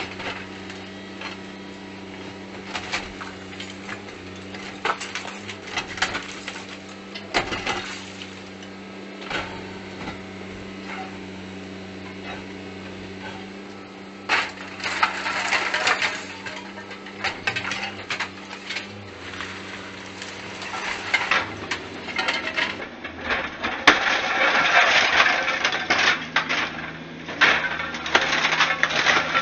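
Mini excavator engine running steadily while rubble and debris clatter, crack and scrape, with two louder, busier stretches of crashing debris, one about halfway through and a longer one near the end.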